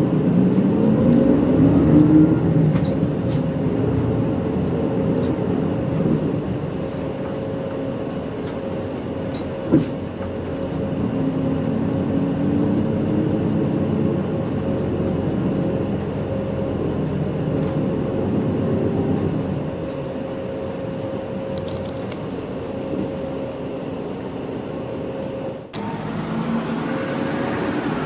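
Bus engines and street traffic. At the start an engine note rises as a vehicle pulls away, then engines run steadily with a constant hum. There is a single sharp click about ten seconds in, and the sound breaks off abruptly shortly before the end.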